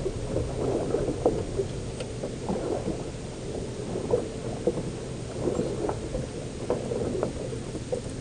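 Low steady rumble with many small irregular knocks and slaps, from a small fishing boat rocking on the sea.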